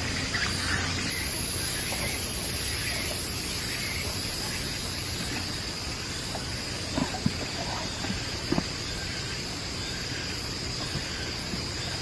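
Steady, high-pitched drone of insects in the forest, with a few short knocks a little after halfway.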